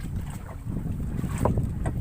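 Wind rumbling on the microphone over water lapping against a small fishing boat at sea, with a couple of light knocks near the end.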